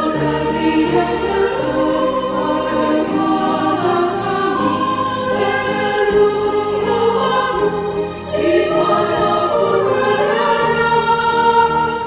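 Choir singing a sacred anthem in sustained, held chords, with a short break between phrases about eight seconds in.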